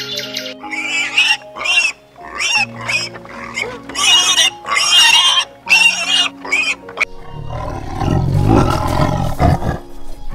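Pigs squealing in a string of short, high-pitched calls, then, from about seven seconds in, a tiger growling low and rough. Background music with held notes plays underneath.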